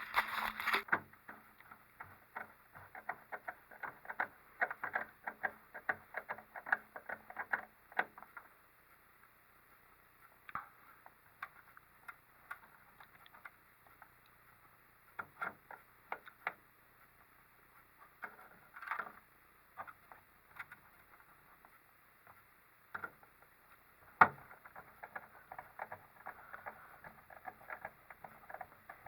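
Small clicks and taps of hand-assembly work on a 3D printer's hood frame: parts and a screwdriver being handled, dense for the first several seconds, then sparser, with one sharp knock late on.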